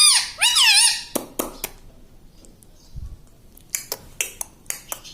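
Pet ringneck parrot giving two shrill, pitch-bending squawks in the first second, followed by scattered sharp clicks.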